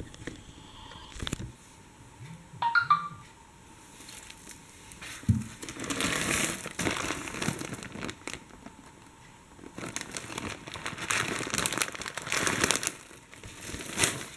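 Clear plastic bag of acrylic beads crinkling as it is handled, in long rustling stretches from about five seconds in, with a sharp tap just before.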